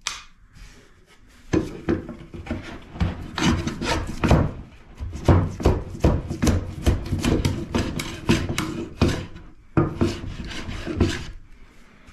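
A plane shaving the edge of a southern pine board in many short strokes, about two a second, with a brief pause near the end; the blade may be dull.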